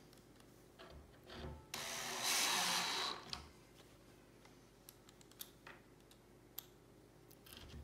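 Cordless drill/driver running once for about a second and a half, driving a screw into the bench's bottom shelf, followed by a few faint clicks of screws being picked up and handled.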